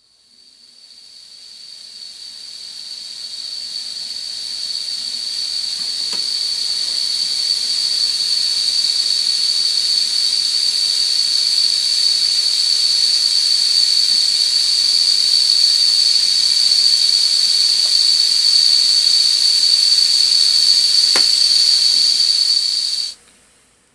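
Steam whistle on a Weeden No. 34 toy steam engine's boiler blowing: one high, steady whistle tone over a hiss of steam, swelling over the first several seconds and cutting off suddenly near the end.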